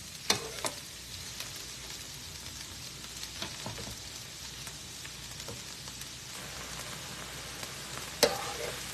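Cauliflower rice with shrimp sizzling steadily in a hot pan on high heat, with a few sharp clicks and scrapes of a utensil against the pan. The loudest click comes near the end.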